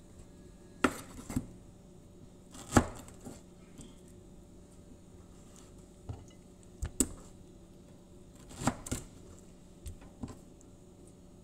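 Kitchen knife cutting peeled pineapple and knocking against the cutting board: about ten sharp, irregularly spaced knocks, the loudest about three seconds in.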